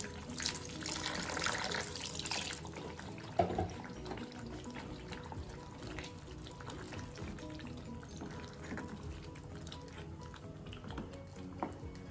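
Water poured in a thin stream into a pan of thick creamy gravy for about two seconds, then a ladle stirring and clicking in the gravy, with soft background music throughout.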